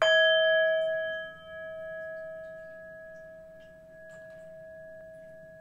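Brass singing bowl struck once with a padded mallet, then ringing on with one clear tone and fainter higher overtones. The ring fades slowly, dipping and swelling as it dies away.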